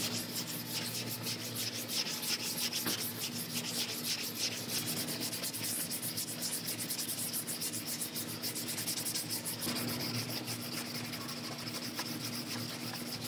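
Body filler on a car's rear quarter panel being hand-sanded with sandpaper in rapid, even back-and-forth strokes, shaping the filler repair.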